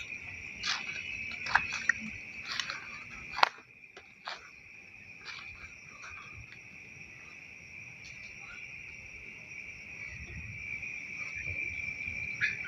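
Steady high-pitched chorus of insects, with a handful of short sharp clicks or chirps over the first four or so seconds, the loudest about three and a half seconds in.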